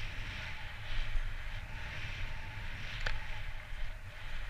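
Snowboard riding through fresh powder: a swishing hiss that swells and fades with each turn, over a steady low rumble of wind on the microphone. A single short tick about three seconds in.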